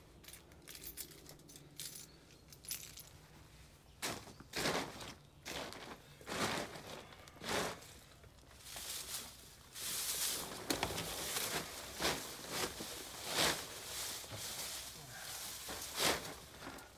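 Irregular rustling, scuffing and scraping from handling a heavy soil root ball on a plastic tarp and shifting it into a plastic pot. It starts about four seconds in and is busiest in the middle.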